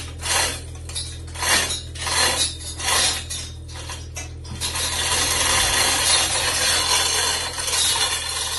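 Manual chain hoist (chain block) being worked to lower a heavy beam: the chain clatters and the pawl ratchets in a series of strokes well under a second apart, then turns into a continuous metallic rattle for the last few seconds.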